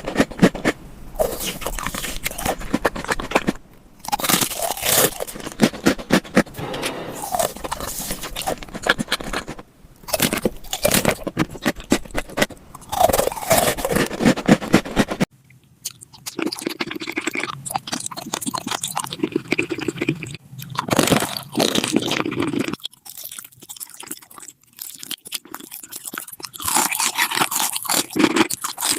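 Close-miked crunching, biting and chewing of food, ASMR-style eating sounds, with abrupt changes in the sound a little past halfway and again about three-quarters through.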